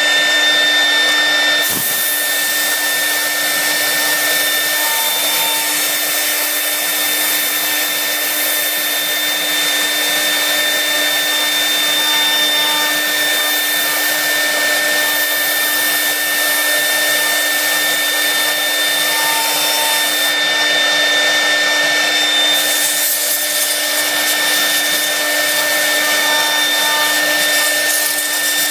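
CNC router spindle running steadily with a constant high whine over a hiss, machining a 3D relief carving in a wood panel.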